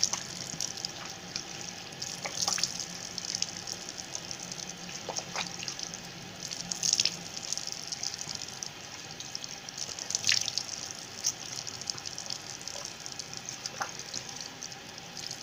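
Tap water running steadily into a sink, with a few brief splashes as hands scoop water over the face to rinse off face wash.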